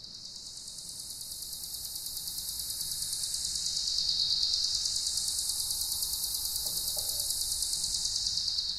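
A high-pitched, insect-like buzzing hiss with a fast flutter, used as a sound-design drone. It swells in over the first few seconds and its brightness sweeps up and down twice.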